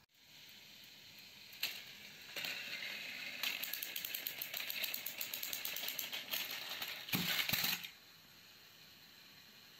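Motorized plastic toy trains running on plastic track: a fast, rattling whir of small geared motors and wheels, starting about two seconds in, with a louder clatter near the end before it stops abruptly.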